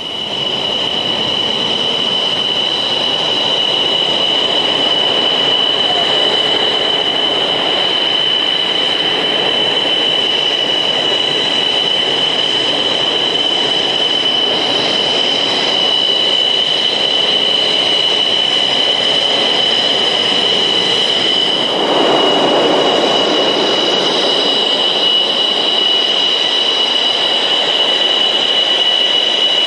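MiG-29's twin Klimov RD-33 turbofans at low taxi power: a steady high-pitched turbine whine over a jet rush. The rush swells for a few seconds about three-quarters of the way through, then settles back.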